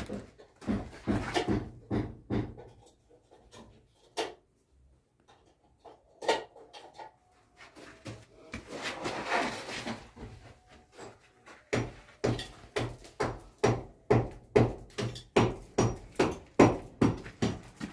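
Repeated sharp knocks and thuds, scattered at first, then a steady run of about three knocks a second from about twelve seconds in.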